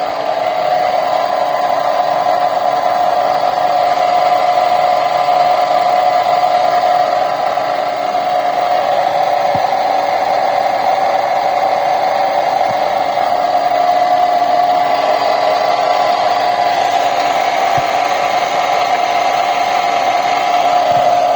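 Volkswagen CrossFox's hydraulic power steering pump whining loudly with the engine running, a steady drone held at one pitch. The pump was fitted less than six months ago and is noisy again; the mechanic allows the noise could instead come from something outside the pump, such as a belt tensioner bearing.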